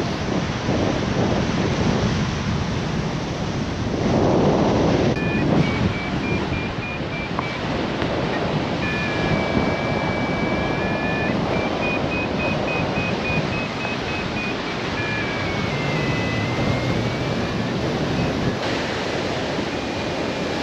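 Wind rushing over the microphone of a hang glider in flight, with a gust about four seconds in. From about five seconds in, the variometer beeps in short repeated high tones whose pitch shifts up and down with lift and sink.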